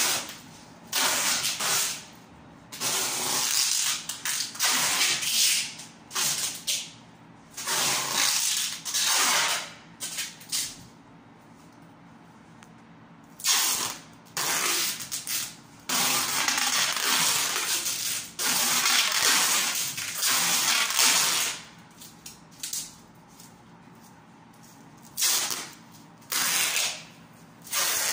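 Packing tape screeching as it is pulled off the roll in repeated pulls of one to three seconds each, with short pauses between, while a moving blanket and cardboard edge protectors are taped around furniture.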